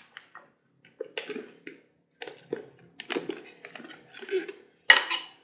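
A utensil stirring and scraping through potato salad in a glass mixing bowl: irregular wet clicks and scrapes with short pauses, and a sharper knock about five seconds in.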